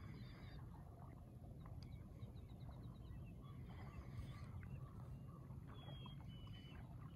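Faint open-air lakeside ambience: a steady low rumble with distant birds calling, a quick run of short high chirps about two seconds in and a couple of thin whistled notes near the end.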